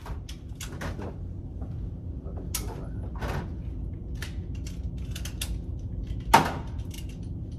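Gunshots on an indoor shooting range, muffled and scattered: a string of short sharp reports with one much louder shot about six seconds in, echoing briefly.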